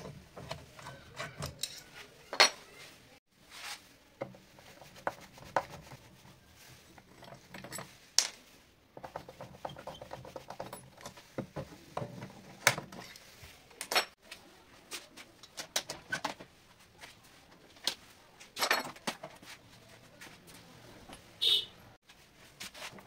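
Irregular sharp metal clicks and clinks of a screwdriver and a loose metal door pull handle being unscrewed and handled against a wooden door.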